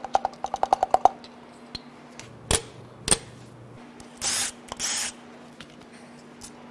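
Connecting-rod cap bolts on a Toyota 2UZ-FE V8 being worked loose: a hand ratchet clicks rapidly for about a second, then come two sharp metallic knocks, then two short whirs of a cordless power tool spinning the bolts out, over a faint steady hum.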